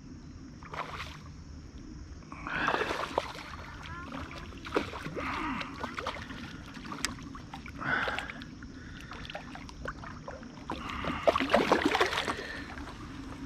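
Water splashing and sloshing in several uneven bursts beside a kayak as a hooked fish is fought and brought in, with small knocks and clicks. The loudest splashing comes near the end.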